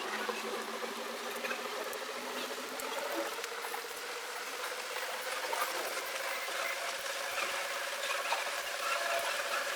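A 6-inch speaker driven by a small amplifier, playing a test sound: a held tone that slowly rises in pitch over a crackly, rustling background, with a lower tone that fades out about three seconds in.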